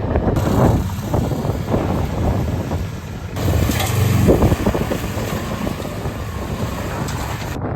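Oldsmobile engine running with a heavy rod knock, a rapid knocking through the engine note, the sign of a worn connecting-rod bearing. It gets louder about three and a half seconds in.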